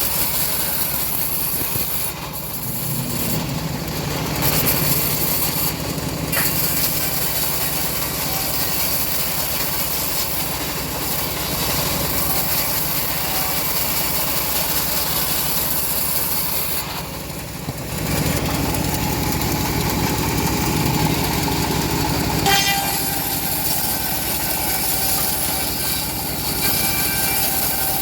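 Home-built bandsaw mill running steadily under its engine while sawing a teak log, with the pitch and load shifting briefly twice.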